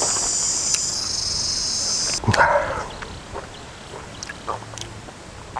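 Insects buzz steadily at a high pitch and cut off about two seconds in. A brief loud noise comes right then, followed by scattered soft clicks and smacks of chewing.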